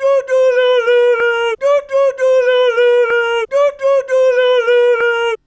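A man singing a nonsense tune of 'da da do-la-lo-la-lol' syllables in a high voice. The same short phrase comes round about every two seconds, three times, and stops suddenly near the end.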